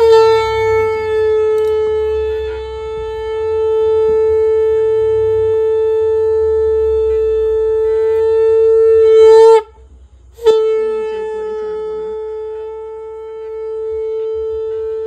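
Conch shell (shankha) blown in two long blasts on one steady note. The first lasts about nine and a half seconds; after a short break for breath, the second is held past the end. This is the ritual conch call of a Hindu puja.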